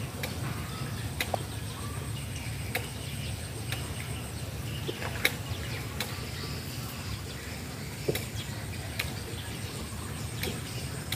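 Quiet outdoor ambience: a steady low rumble with faint bird chirps and a scattering of short, sharp clicks.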